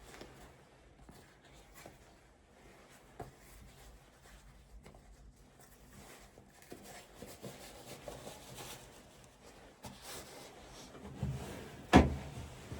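Quiet rustling and scattered small clicks, with a low rumble and then one sharp, loud knock near the end.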